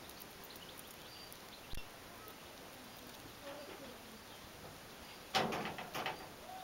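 Faint outdoor ambience with scattered bird chirps. A soft knock comes just under two seconds in, and a brief, louder rustling clatter of a few quick strokes about five seconds in.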